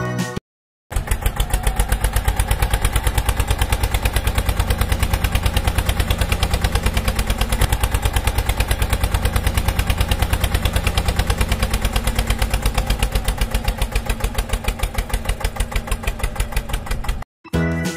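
Tractor engine running steadily at idle, an even low putter of about ten beats a second that starts abruptly after a short silence and cuts off suddenly near the end.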